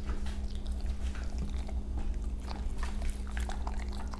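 Siberian huskies biting and chewing pieces of raw chicken breast close to a microphone: irregular clicks and smacks of jaws and teeth, over a steady low hum.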